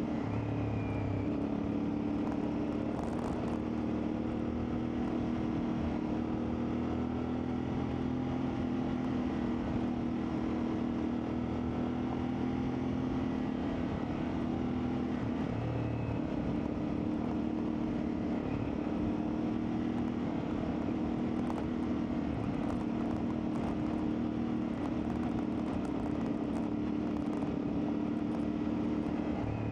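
CFMoto 450MT's parallel-twin engine running at a fairly steady speed while the bike is ridden, its pitch holding mostly level with small rises and dips.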